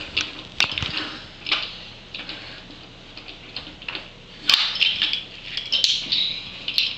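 Hard plastic toy figure parts clicking and clattering as they are bent, opened and set down on a wooden table: scattered sharp clicks, with a busier run of clicks and rattles about four and a half to six seconds in.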